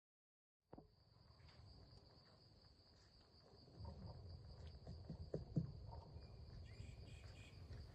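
Faint, steady high-pitched insect trill, typical of crickets, starting abruptly under a second in, over a low rumble with a few soft knocks; short bird chirps come in near the end.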